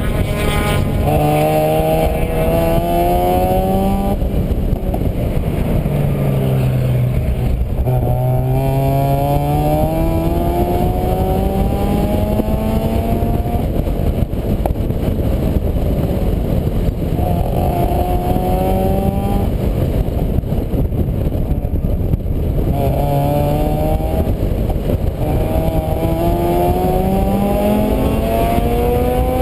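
Vehicle engine accelerating again and again. Its pitch climbs for a few seconds, then drops back as it shifts up, about five times, over a constant low rumbling noise.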